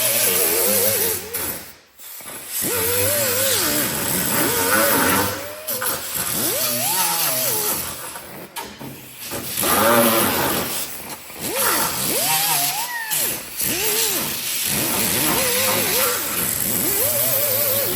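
Electric grinder grinding fiberglass, its whine sagging as it is pressed into the work and rising again as it is eased off, over and over. It drops out briefly about two seconds in and stops at the end.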